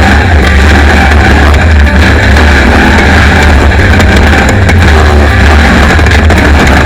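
Class 1 off-road race car's engine running hard at speed, a loud, unbroken rumble, with music mixed in.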